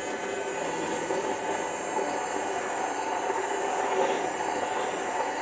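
Handheld immersion blender running steadily, submerged in soy milk and avocado oil as it emulsifies them into mayonnaise.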